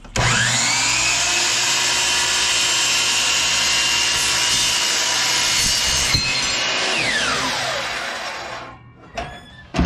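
DeWalt sliding miter saw starting with a rising whine and running steadily while its blade cuts aluminum T-track, with a sharp crack about six seconds in. The motor is released about seven seconds in and winds down with a falling whine, followed by a short knock near the end.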